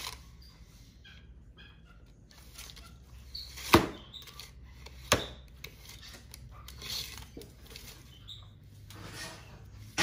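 A retractable tape measure being handled, its blade and case clacking: two sharp clacks about four and five seconds in, with small ticks and rustling between them.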